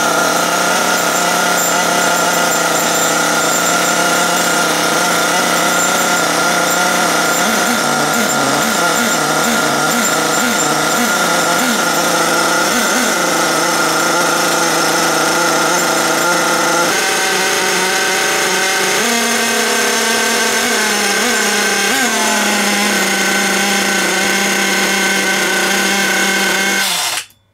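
HPI Savage radio-controlled monster truck's nitro glow-fuel engine idling steadily, its pitch shifting a few times in the second half, then cutting off abruptly near the end. It is running alright again after an earlier problem.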